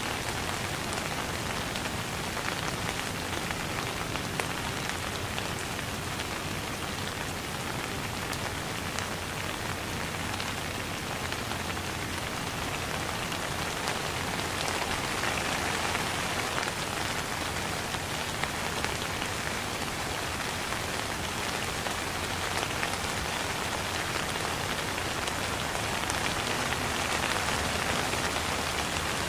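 Steady rain falling on a wet surface. It makes a dense, even hiss, with the ticks of single drops landing.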